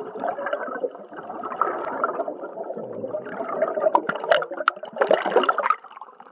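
Scuba diver's exhaled air bubbling out of the regulator, heard underwater as a continuous rushing bubble noise with scattered sharp clicks.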